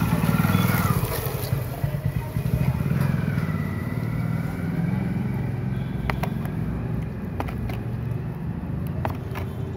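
Motorcycle engine running close by as the bike passes, loudest in the first second, then a steady low rumble carries on. A few sharp clicks come near the end.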